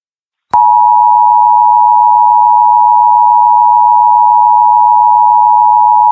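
A loud, steady electronic tone cuts in about half a second in and holds one unwavering pitch without a break, like a broadcast interruption or alert tone.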